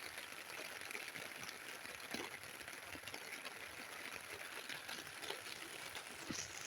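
Steady rain falling on a tent and its tarp, heard from inside the tent: a dense patter of drops with a couple of louder drips about two seconds in and near the end.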